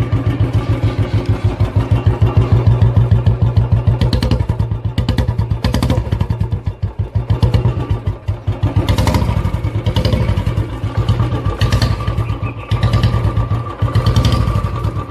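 Royal Enfield single-cylinder motorcycle engine running under way, a steady, fast thumping beat that eases off briefly a few times.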